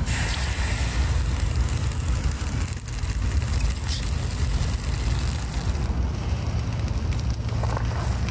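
Wind rumbling on the microphone, with faint crackling from a wood fire.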